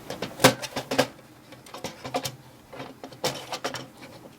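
Plastic wrapping being pulled off an inkjet printer's duplex unit, with crinkling and a string of sharp clicks and knocks from the plastic part being handled. The loudest knock comes about half a second in.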